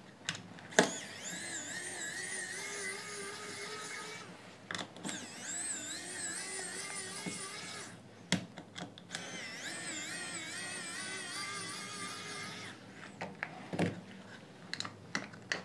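Small pen-style electric screwdriver backing screws out of a plastic headphone earcup. It makes three runs of motor whine, each a few seconds long, with the pitch wavering under load, and a few sharp clicks of the bit and screws between them.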